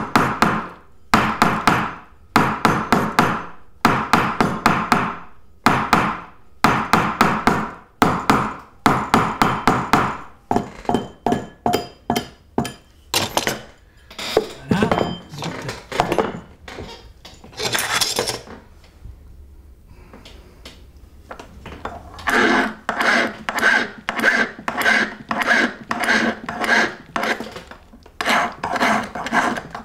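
A mallet taps a ring on a steel ring mandrel in quick bursts of strikes, rounding the band to shape. The taps thin out to scattered knocks. From about two-thirds of the way in, a hand file rasps on the ring in regular strokes, about two a second.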